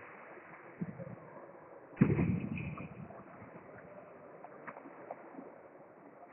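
A single heavy thud about two seconds in that echoes and dies away over about a second in a large sports hall, with a few faint clicks afterwards.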